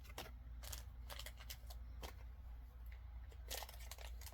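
Enamel pins and their packaging being handled: a dozen or so small clicks and light rustles in irregular succession, over a steady low hum.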